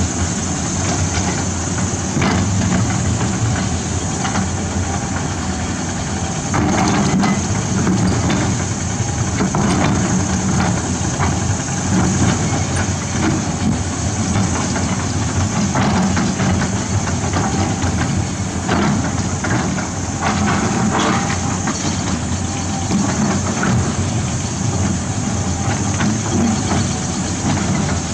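Caterpillar 320D hydraulic excavator's diesel engine running steadily as the machine travels on its crawler tracks over gravel, with scattered clanks and crunches from the track links and stones.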